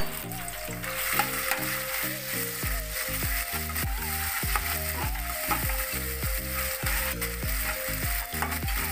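Garlic, ginger and green-chilli paste sizzling as it fries in hot oil in a steel kadhai. Instrumental background music plays over it, and its bass line comes in about three seconds in.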